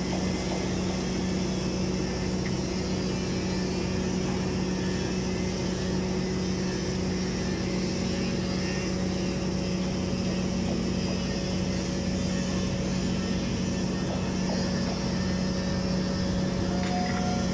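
Automatic girth welder running a submerged arc weld along a horizontal storage-tank seam: a steady, even machine hum that does not change.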